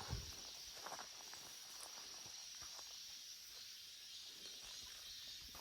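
Faint, steady high chirring of insects, with a few soft ticks and rustles.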